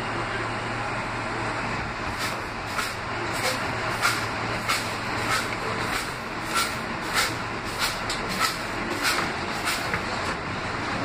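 R160B subway car running on the track as it pulls out of a station, heard from inside the car: a steady rumble with a regular clicking from the wheels about every half second or so. A low hum under it fades out about halfway through.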